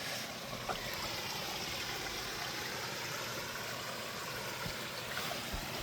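Water from a koi pond's waterfall running steadily, a continuous even rush.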